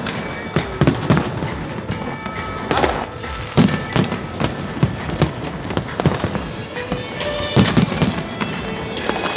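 Fireworks display: a rapid, irregular series of bangs and crackles from bursting shells, with music playing alongside.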